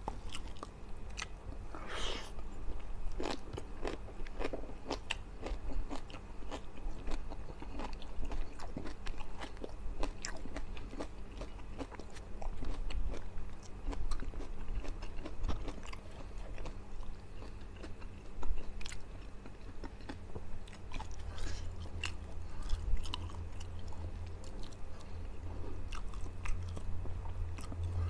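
A man chewing and biting a hand-eaten mouthful of rice, fried fish and boiled water spinach: a quick, uneven run of small mouth clicks and crunches.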